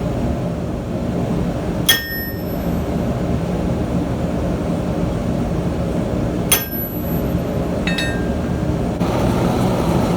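Hammer blows on a square steel bar resting on an anvil-mounted marking tool (an anvil devil), cutting marks into the cold bar: two hard ringing strikes, a few seconds apart, then a lighter ringing tap. A steady low rumble runs underneath and grows a little louder near the end.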